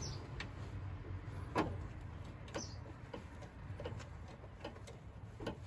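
Faint, scattered small clicks and taps of nuts being threaded by hand onto the clutch master cylinder's mounting studs, over a low steady background rumble.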